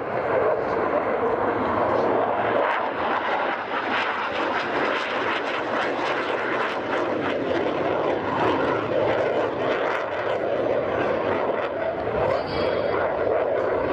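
Jet engine of a Saab JAS-39 Gripen fighter, its single Volvo RM12 turbofan, flying a display pass overhead: a loud, steady rushing noise that does not let up.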